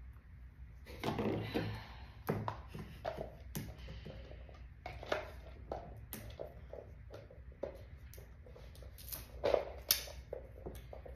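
Hands working at a toy mystery egg, turning and prying at its shell: irregular clicks, taps and rubbing, with a cluster of louder knocks about a second in and again near the end.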